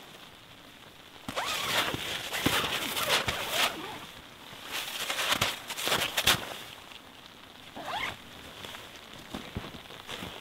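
Pomoly LEO 2 hot tent's door zipper being run shut in several rasping pulls, with the nylon fabric rustling. The pulls come in two main spells in the first two-thirds and one short pull near the end.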